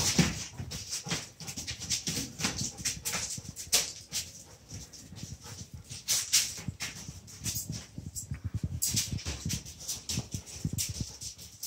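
Dogs moving about on paper-covered flooring: irregular rustling and crinkling of the paper with sharp taps of paws and nails.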